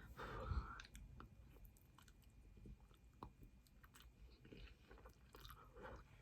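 Faint chewing of a mouthful of egg noodles, with small scattered mouth clicks; a slightly louder sound in the first second.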